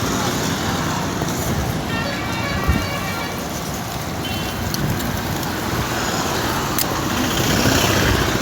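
Heavy rain pouring steadily in cyclone weather, a constant hiss, with a brief higher tone about two seconds in and a couple of sharp clicks.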